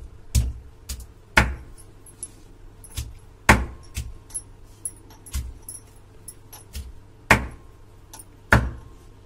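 Stone batta (grinding stone) pounding whole potatoes in their skins against a stone sil slab, crushing them coarsely. It makes about a dozen sharp knocks at an uneven pace, some much louder than others.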